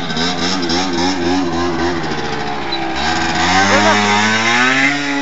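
Small motor-scooter engine revving up and down unevenly. About three seconds in, a scooter accelerates close by, its engine note rising and then holding steady.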